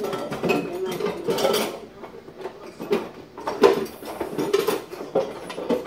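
Kitchen utensils and dishes clinking and clattering in a run of irregular knocks as someone rummages through the kitchen for measuring spoons.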